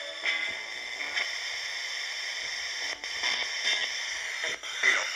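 Ghost box: a Radio Shack 20-125 radio sweeping the band, heard through a Marshall MS-2R mini amplifier. It gives a steady hiss of static broken by brief snatches of broadcast sound, with short dropouts about three seconds in and again near the end.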